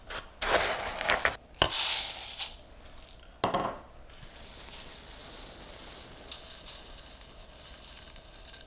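A measuring cup scooping dry rice out of a plastic tub, the grains rattling with a knock or two, then from about four seconds in a steady hiss of dry rice pouring through a plastic funnel into a sock.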